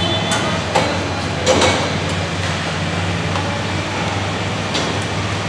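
Factory floor noise: a steady low mechanical hum, with a sharp click under a second in, a short clatter about a second and a half in, and another click near the end.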